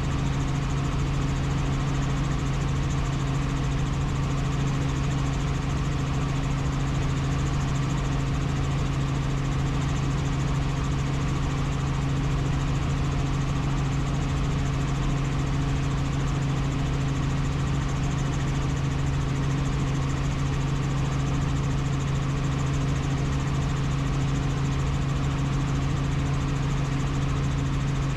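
Helicopter in steady flight: a constant drone of engine and rotors with a strong, even low hum that does not change in pitch or loudness.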